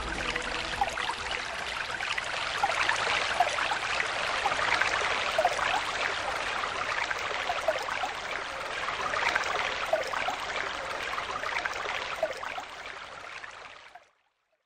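Running water of a stream, a steady bubbling flow that fades out near the end.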